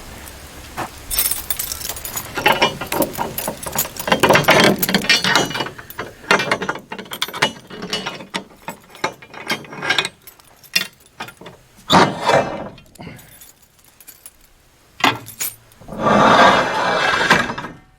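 Irregular metal clanks, clicks and rattles, with a few longer bursts of scraping or rustling, from a portable sawmill being opened up and its parts handled.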